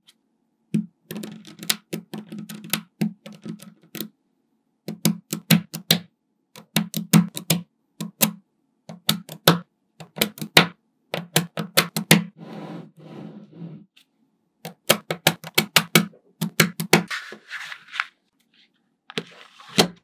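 Small magnetic balls clicking and snapping together as they are pressed into place by hand: quick runs of sharp clicks, broken by short pauses.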